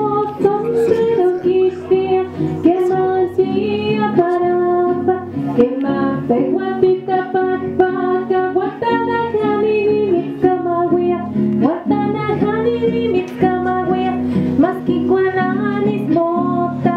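Background music: a song led by plucked guitars, playing continuously.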